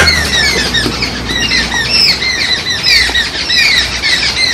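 A flock of babblers calling: harsh squawking calls, each falling in pitch, several a second and overlapping in a continuous chatter.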